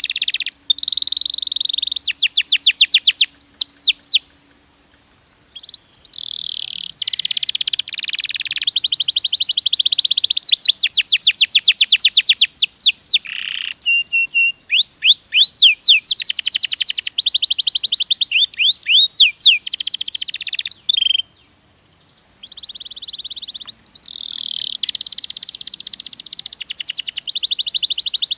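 Domestic canary singing a long, rapid song of fast repeated notes and trills that change speed from phrase to phrase, with two brief pauses.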